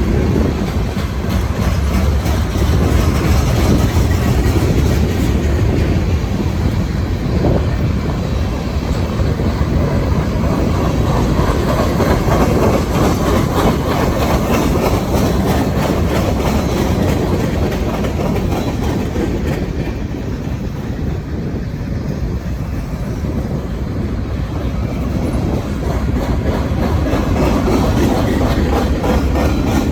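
Freight train cars rolling past: a steady loud rumble of steel wheels on rail with rhythmic clickety-clack over the rail joints, easing slightly about two-thirds of the way through and building again near the end.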